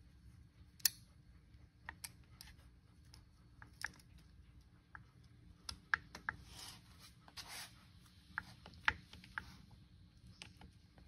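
Scattered light metal clicks and clinks from a John Deere 3-cubic-inch hydraulic pump as its main shaft is worked by hand into the housing. The loudest clicks come about a second in and again near the end, with a couple of brief rubbing sounds in between.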